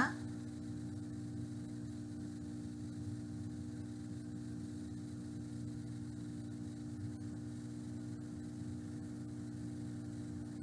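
Steady low electrical-type hum, with faint, irregular scrapes of a metal spoon stirring diced vegetables in a stainless steel pot.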